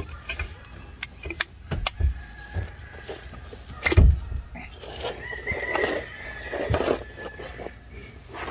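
Irregular knocks and clunks, the loudest about four seconds in, with a faint steady high tone for a couple of seconds past the middle.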